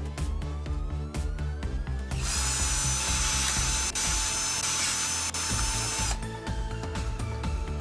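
KEAYANG DD-962 cordless drill's motor running at a steady speed for about four seconds, starting about two seconds in and stopping abruptly. It is preceded by a run of rapid clicks, over background music.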